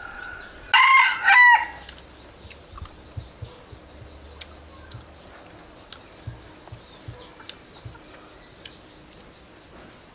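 A rooster crows once, a short two-part crow about a second in. Scattered faint clicks and light taps follow.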